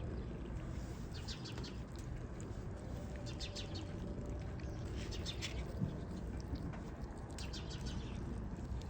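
Bird chirping in short bursts of rapid, high chirps, about five times, over a steady background hiss.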